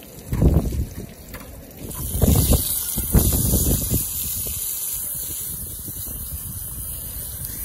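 Zucchini slices sizzling in a pan, a steady hiss that sets in about two seconds in. Wind gusts buffet the microphone with low rumbles around half a second in and again between about two and four seconds.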